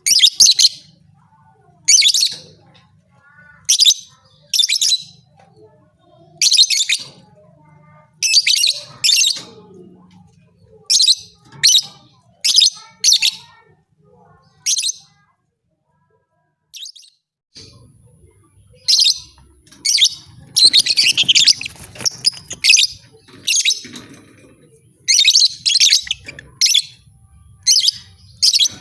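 Lovebird chirping in short, sharp, high-pitched bursts about once a second, falling silent for about two seconds partway through, then chirping faster and more densely. It is the kind of lovebird call played to provoke other lovebirds into fighting song.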